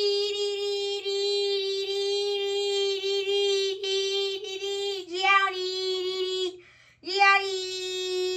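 A child's voice holding one long, steady high-pitched 'aaah' note. It breaks off about six and a half seconds in and starts again on the same pitch half a second later.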